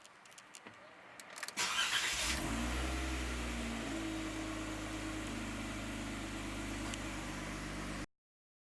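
Jeep Wrangler JK engine cranked by its starter, catching, and then idling steadily, after a few light clicks; the sound cuts off suddenly near the end.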